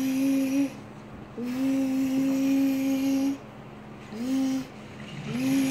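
A voice imitating a train whistle: held, breathy "woo" notes on one pitch, each sliding up slightly as it starts. One note carries into the start, a long one lasts about two seconds, a short one follows, and another begins near the end.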